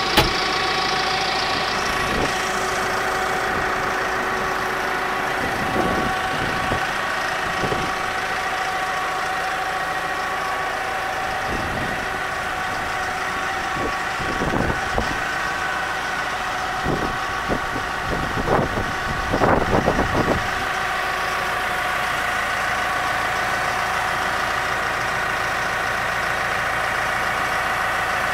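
Tractor diesel engine idling steadily, with a constant whine over the running. A sharp click comes just at the start, and irregular knocks and thumps cluster in the middle.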